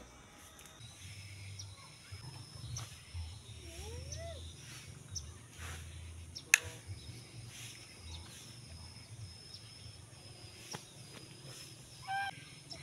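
Quiet outdoor rural ambience with birds calling now and then over a steady high-pitched tone and a low rumble. A single sharp click about halfway through is the loudest sound.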